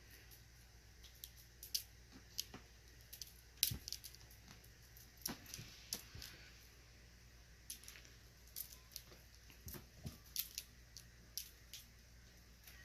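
Faint, irregular clicks and short scratchy rustles: a kitten's paws and claws catching and scuffing on a sherpa fleece blanket as it plays. The sharpest tick comes a little under four seconds in.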